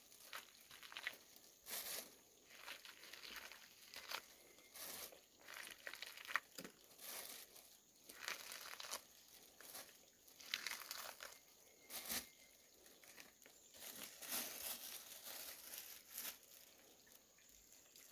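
Faint, irregular rustling and crinkling of dry material, a short burst every second or so.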